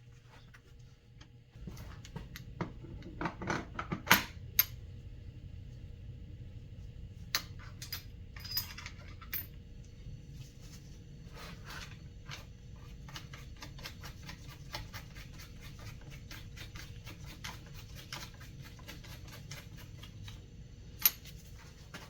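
Metal tools and small metal parts clinking and clattering as they are handled, busiest about three to four seconds in and again around eight seconds, with a sharp click near the end, over a low steady hum.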